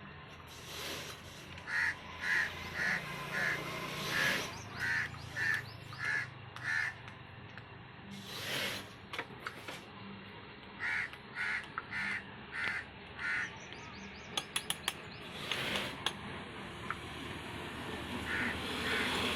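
A bird calling in runs of short repeated notes, about two a second, with a few louder bursts of noise and quick clicks between the runs.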